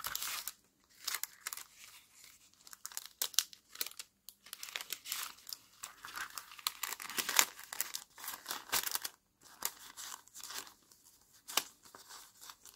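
Clear cellophane bag crinkling and rustling in the hands as a paper book page is slid into it, in irregular crackles.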